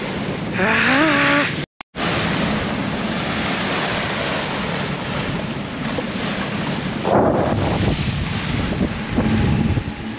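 Wind buffeting the microphone and choppy water rushing past a sailboat's hull, with a low steady drone under it from the boat motoring. About half a second in comes a brief rising whoop, and the sound cuts out for an instant just before two seconds.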